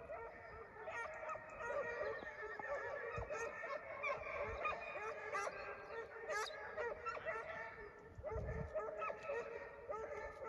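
Hunting dogs yelping and baying in a dense chorus of overlapping high cries that keeps on without a break, the excited cry of hounds on a wild-boar scent.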